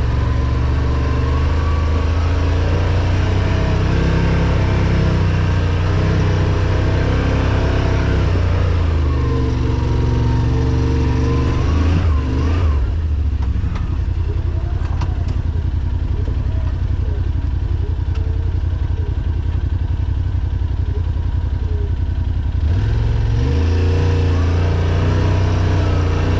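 Side-by-side UTV engine running while driving a trail, its pitch shifting with the throttle. The engine note drops about halfway through and picks up again near the end.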